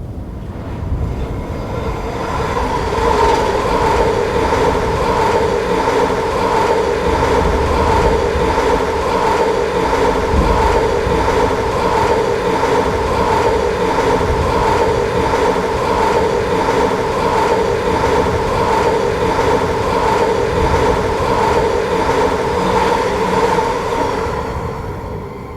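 Train passing at medium speed, a steady rail sound with an even pulsing beat. It swells in over the first few seconds and dies away near the end.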